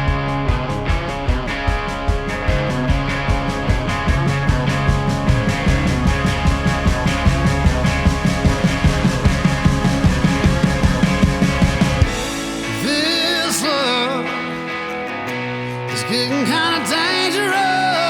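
Rock music with a steady drum beat and bass. About twelve seconds in, the drums drop out and a singing voice comes in over guitar.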